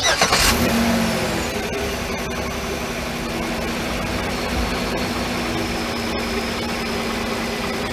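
GM 3400 3.4-litre V6 in a Pontiac Torrent starting up, its revs flaring briefly and falling as it settles into a steady idle within about a second. It is running on a newly fitted serpentine belt and belt tensioner, with a faint high whine that settles along with the revs.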